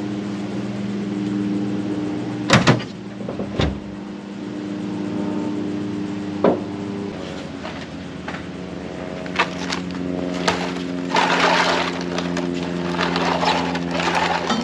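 Steady low hum throughout, with a few sharp knocks. Near the end comes a clattering scrape as an air-conditioner condenser unit is tipped and shifted on the pavement.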